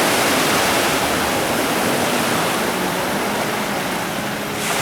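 Steady rushing of ocean surf, a continuous hiss with no distinct wave breaks. The hiss changes abruptly near the end.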